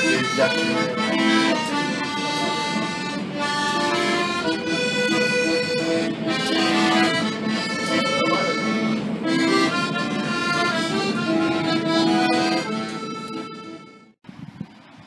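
An accordion playing a lively tune of melody and chords, played live inside a train carriage. It cuts off abruptly about a second before the end, leaving a faint steady noise.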